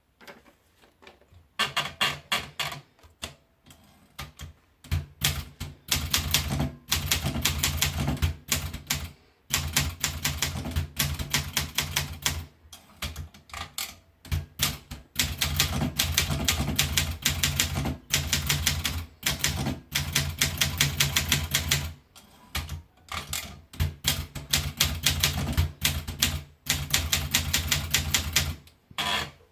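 Olympia Monica manual portable typewriter being typed on in fast runs of keystrokes, each run lasting a few seconds, with brief pauses between them.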